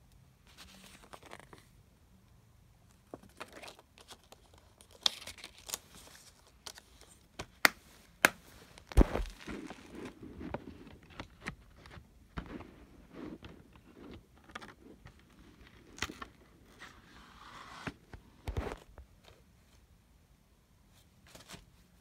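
Handling of a blue plastic Blu-ray case and its discs: scattered plastic clicks, scrapes and rustling, with a few sharp, loud clicks about eight to nine seconds in.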